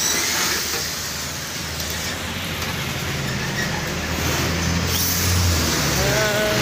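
Steady road traffic noise, with a motor vehicle's engine hum coming in about halfway through.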